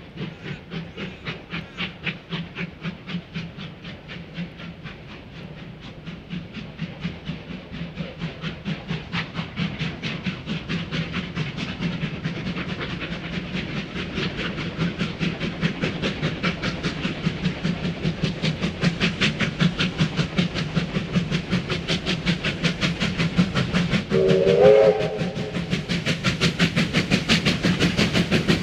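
Two R class Hudson steam locomotives working hard as they approach, their exhaust beats fast and even and growing steadily louder. A short steam whistle blast sounds near the end.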